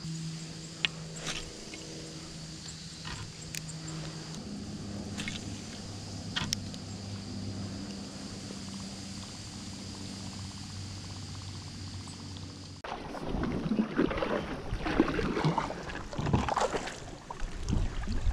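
A boat engine humming steadily, shifting pitch a couple of times. It cuts off abruptly about thirteen seconds in, giving way to louder, gusty wind noise on the microphone with a few knocks.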